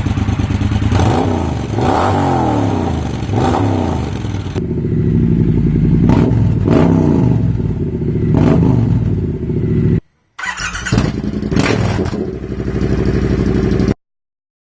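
Triumph T120 parallel-twin engine revving with repeated throttle blips, in three short back-to-back recordings. The exhaust note changes abruptly at each cut, from one exhaust set-up to the next: stock pea-shooter silencer, aftermarket Tec Bike GP-style can with baffle in or out, or no exhaust fitted. The sound stops suddenly near the end.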